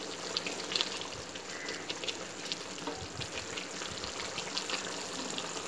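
Masala paste of blended onion, garlic, green chilli and tomato frying in oil in a large kadhai over a high flame. It gives a steady sizzle dotted with many small pops and crackles as its water cooks off.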